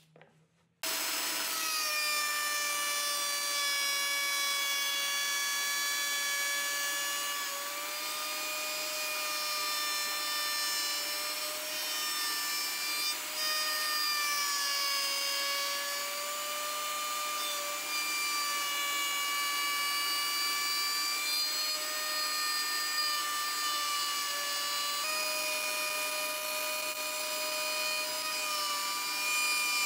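Table-mounted router running at high speed, its motor whining steadily while a bearing-guided trim bit cuts along the edge of a wooden board, the pitch sagging slightly now and then as the cut loads it. The sound starts abruptly about a second in.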